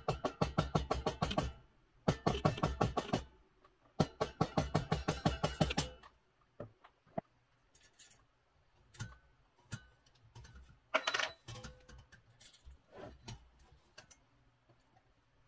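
Rapid light taps of a small mallet on a steel punch against a propeller hub, in three quick runs of about eight to ten blows a second. After that come scattered lighter clicks and short metal clinks as the parts are handled.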